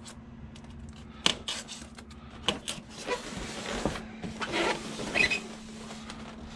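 A knife cutting packing tape on formed foam packaging, with a few sharp clicks and knocks and a stretch of scraping and rustling a little past halfway. A faint steady hum runs underneath.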